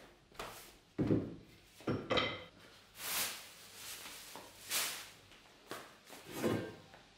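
Footsteps on a wooden parquet floor and the crackle of a plastic carrier bag being carried and set down: a handful of separate low thumps and rustles.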